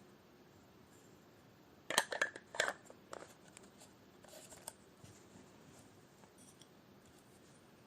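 Camera shutter clicking: a quick cluster of sharp mechanical clicks about two seconds in, followed by a few fainter clicks over the next two seconds.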